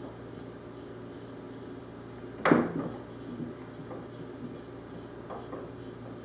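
A wooden foosball table knocked by a baby gripping a rod handle: one loud clunk about two and a half seconds in, then a few softer knocks, over a steady low hum.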